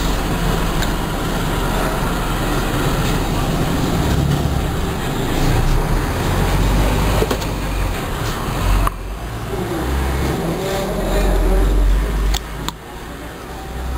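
Steady rumbling background noise of the road-traffic kind, with a deep hum underneath. The level drops suddenly twice, about nine seconds in and again near the end.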